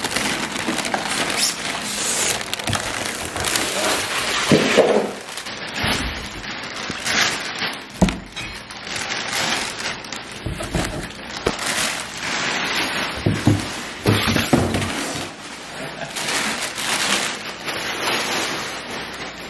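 Unpacking noise: plastic wrapping crinkling and rustling while cardboard and styrofoam packing blocks are pulled out and handled, with scattered knocks and a heavier thump about 8 seconds in.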